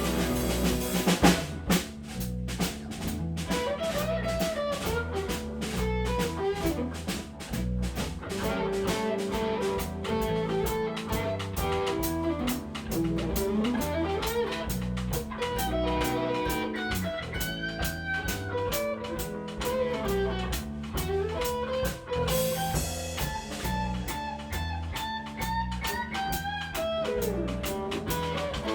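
Blues band playing an instrumental break: a guitar lead with bending notes over a drum kit's steady beat and a low bass line, with a loud drum hit about a second in.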